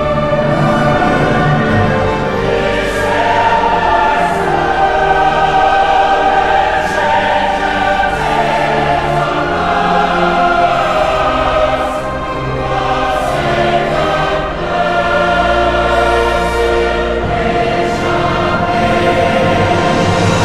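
A choir singing a slow piece in long, held chords, laid over the footage as background music.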